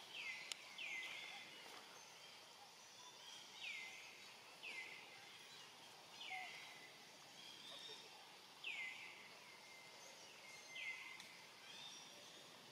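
Faint animal calls, high-pitched and each sliding down in pitch, repeated about eight times at uneven gaps of one to two seconds over quiet outdoor background noise.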